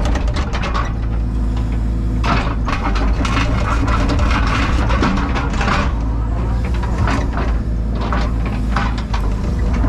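Takeuchi TB285 excavator's diesel engine running steadily under work, with several bursts of scraping and clatter as the machine handles rip-rap stone.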